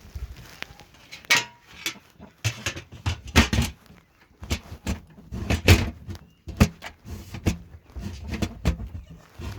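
Irregular clunks, rattles and scrapes of a grain bucket and feed can being handled.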